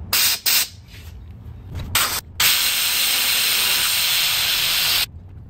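Compressed shop air hissing through a Robinair venturi-type vacuum coolant filler as it pulls a vacuum on the cooling system. Three short spurts of hiss come first, then a loud, steady hiss that cuts off suddenly about five seconds in.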